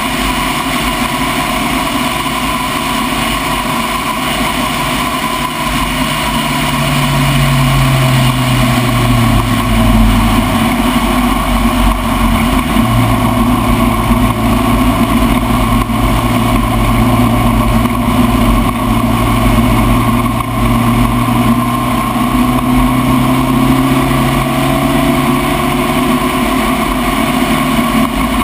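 Spec Racer Ford's four-cylinder engine running under load. Its pitch sags from about six to ten seconds in and breaks off briefly, then holds and slowly climbs again through the rest.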